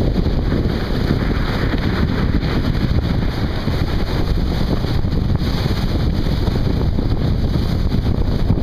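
Steady wind buffeting and rumbling on the microphone aboard a sailing yacht under way, with water rushing along the hull.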